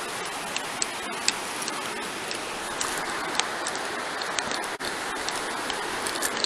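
Steady rushing of a swollen, fast-flowing river, with a few scattered light clicks and taps.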